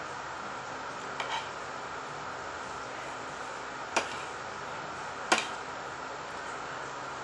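Spoon and fork clinking against a ceramic plate while eating: a couple of light clicks about a second in, then two sharper clinks, the last the loudest. A steady hiss sits underneath.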